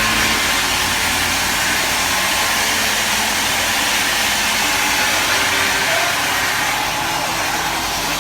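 Steady machinery noise: a low engine-like drone under a strong, even hiss.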